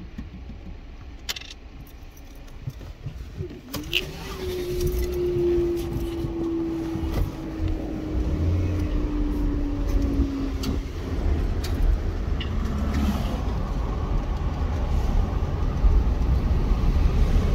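Car engine and road noise heard from inside the cabin, growing louder about four seconds in as the car pulls away and drives on. There are a couple of sharp clicks before it moves off, and a steady tone falls slowly in pitch for several seconds.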